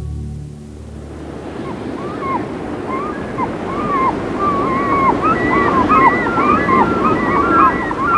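Soft music fades out in the first second, giving way to the wash of sea surf and a chorus of gulls calling. Their short cries grow more frequent toward the end.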